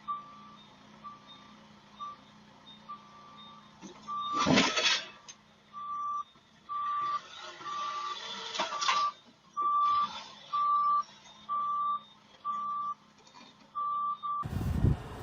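A heavy vehicle's reversing alarm beeping, a single steady tone repeating about twice a second, faint at first and louder from about six seconds in. Two louder noisy bursts break in about four and a half and nine seconds in, and near the end the beeping gives way to a loud rushing noise.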